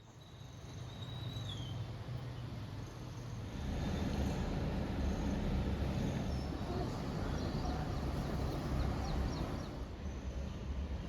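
Outdoor ambience: a steady low rumble that fades in and grows louder about three and a half seconds in, with a few faint bird chirps.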